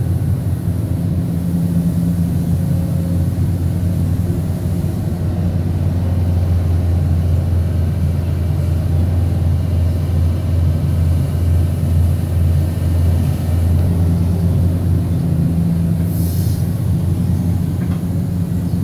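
Caterpillar excavator's diesel engine running steadily under working load, a continuous low drone, with a brief faint hiss near the end.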